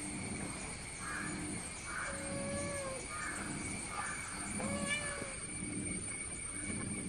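A kitten meowing twice, two drawn-out cries, about two seconds in and again about five seconds in, as it struggles to climb down a tree.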